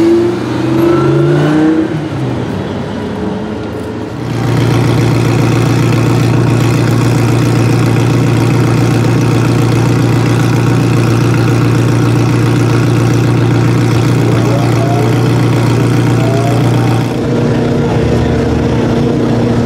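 Ferrari F40's twin-turbo V8 on a Tubi exhaust accelerating away, its revs rising, for the first few seconds. It then settles into a steady, even idle, and the note shifts slightly near the end.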